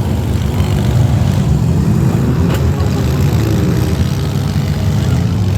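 Several demolition derby minivans' engines running hard together in a steady, loud low rumble, with one brief knock about halfway through.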